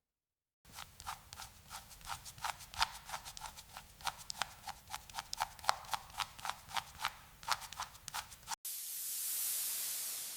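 Rapid, irregular light clicks and taps of hand-tool work on metal, about four or five a second. After an abrupt cut near the end they give way to a steady hiss of spraying air that swells and then fades.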